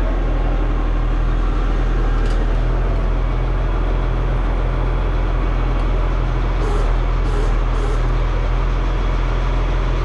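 Diesel engine of a small truck-mounted crane running steadily while it holds the engine being lowered, a constant low hum. About two-thirds of the way through come three short hisses.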